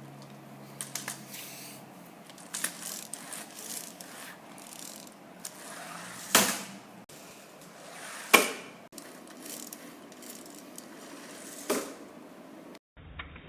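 Plastic Lego Technic parts clicking and clattering as the pull-back car is handled, with scattered light clicks and three louder sharp clacks, the loudest about eight seconds in.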